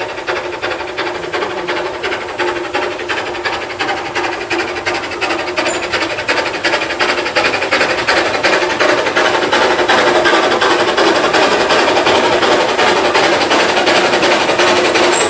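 Narrow-gauge steam locomotive approaching under power: a quick, even beat of exhaust chuffs that grows steadily louder as it nears.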